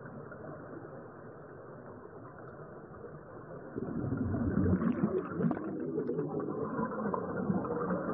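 Muffled underwater noise, then about four seconds in a sudden louder, irregular bubbling rumble from scuba divers exhaling through their regulators near the camera.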